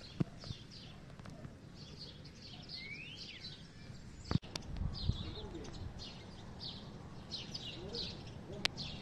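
Small birds chirping over and over, short high chirps repeating throughout with one rising call about three seconds in. A sharp click a little over four seconds in is the loudest sound, followed by a few low thumps.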